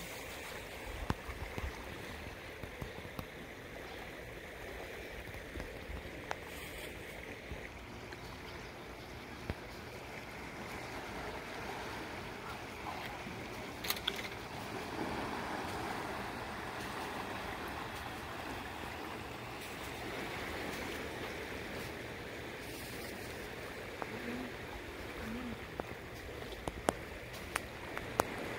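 Steady rushing of the turbulent tailwater below a dam, with a few scattered small clicks and knocks.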